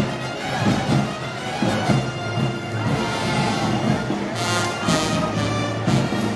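Festival band music with brass, playing over a steady beat: Moros y Cristianos march music.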